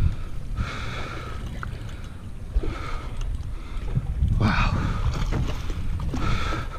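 Low rumble of wind on the microphone and the boat at sea, broken by four short spells of whirring from a fishing reel being cranked as a hooked fish is reeled in.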